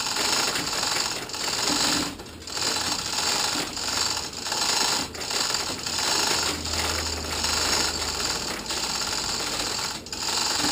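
Chain hoist on an engine crane rattling and clicking in rapid spells of about a second, with short pauses between, as a boat engine is hoisted out of the hull.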